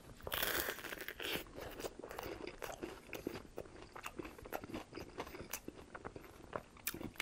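Close-miked bite into a piece of BLT sandwich, with a crunch about half a second in and another near 1.3 s. It is followed by chewing with many small wet mouth clicks.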